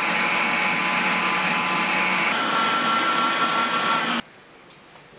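Steady whirring of a small electric motor that cuts off abruptly about four seconds in.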